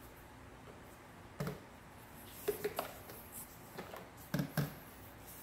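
A handful of soft knocks and clicks from the plastic hose of a Bissell PowerForce Helix upright vacuum being handled and routed on the machine. The sounds come in short pairs, about a second or two apart.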